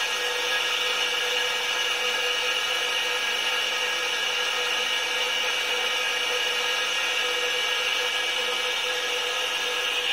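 Three-phase electric motor running steadily, driven by a Delta 30 HP inverter (variable-frequency drive), with a steady high whine over its hum. This is the repaired drive working under test.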